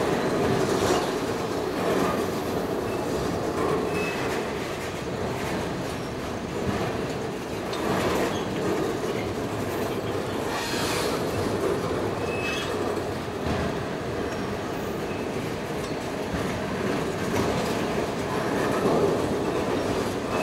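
Freight train of auto carrier cars rolling past, wheels rumbling and clattering over the rail joints, with a couple of brief high wheel squeals.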